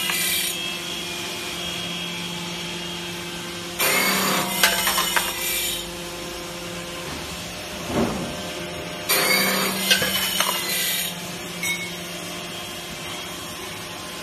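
Automatic brass-rod cutting-off machine running with a steady motor hum, its saw cutting through rod in stretches of about two seconds, twice, roughly five seconds apart.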